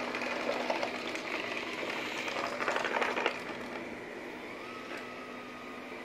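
Roidmi Eve Plus robot vacuum running on a carpet: a steady suction whirr over a low hum. Two bursts of rattling, about half a second in and around three seconds in, as it sucks up sunflower seeds and roasted chickpeas. After these it settles to the plain whirr.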